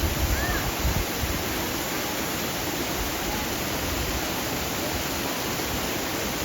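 Steady rush of stream water tumbling over small falls.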